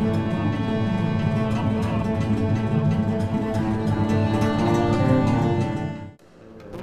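Instrumental music with plucked and bowed strings, fading out abruptly about six seconds in.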